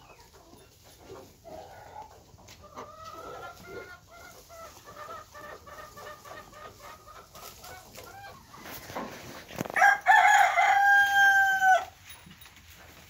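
A domestic rooster clucking in a quick run of short notes, then crowing once near the end in a long, loud, held call that drops slightly as it ends.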